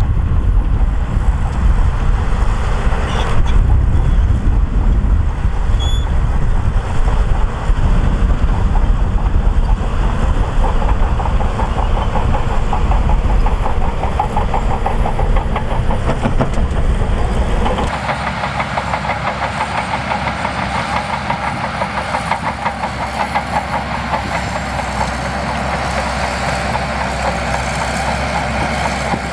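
Shantui DH17C2 crawler bulldozer's diesel engine running under load, with the rhythmic clanking of its steel tracks. About two-thirds of the way through, the deep rumble drops away and the higher clatter becomes more prominent.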